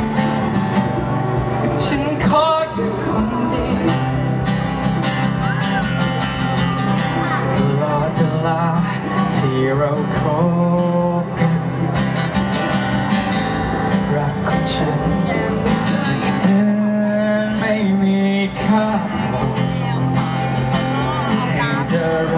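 Live acoustic guitar played in steady chords while a man sings along.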